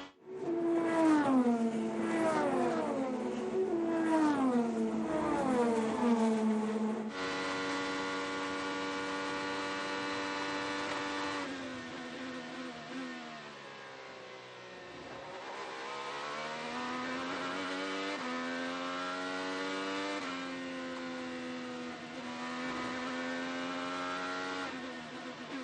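IndyCar engine note with revs dropping in a quick series of steps for the first several seconds, as through successive downshifts, then holding steady. After that it sags, climbs again and holds steady toward the end.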